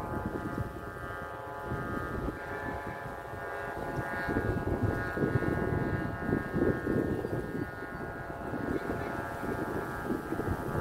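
Bamboo kite flutes on kites high overhead droning together in the wind, a chord of many steady tones held without a break, with gusts of wind rumbling on the microphone.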